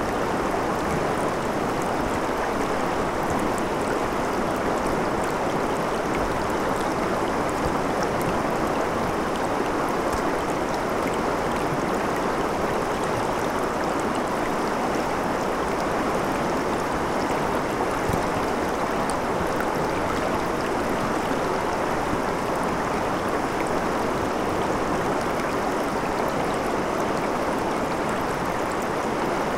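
Shallow river water rushing and splashing over stones in a riffle: a steady, even rush of moving water.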